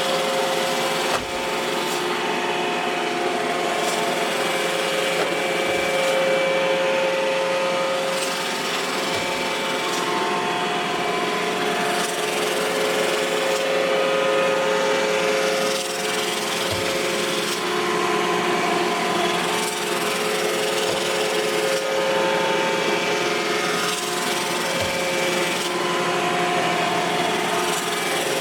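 iRobot Roomba i7 robot vacuum running: a steady whir of its suction fan and brushes, with tones that shift now and then. A few short knocks come at intervals as its bumper hits obstacles.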